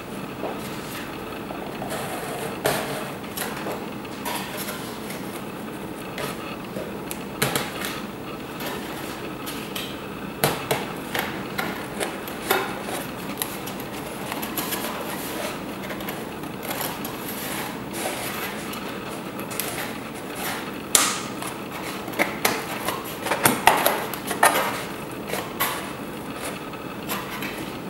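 Foam board and card parts being handled and fitted onto a model car frame: scattered light taps, knocks and scrapes, busiest and loudest from about three quarters of the way through.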